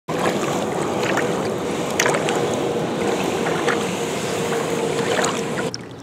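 Small waves lapping and splashing at the water's edge on a sandy shore, a steady wash of water with brief splashes; it cuts off sharply near the end.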